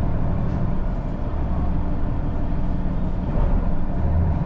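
Diesel railcar engine running with a steady deep drone, heard from inside the carriage as the train moves.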